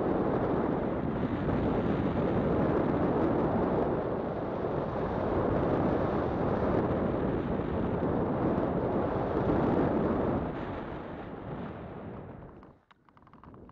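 Paramotor in flight: a loud, steady rumble of the motor mixed with wind rushing over the microphone. It dies away over the last few seconds as the motor is throttled back while the craft comes down to the ground.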